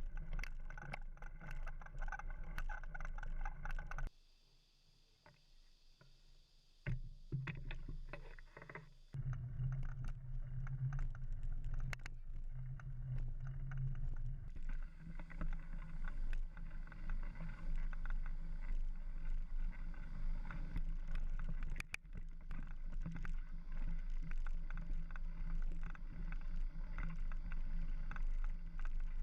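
Mountain bike ridden along a dirt trail: a steady rumble of wind and tyres with constant small rattles and clicks from the bike over bumps. It drops almost to quiet for about three seconds near the start, then picks up again.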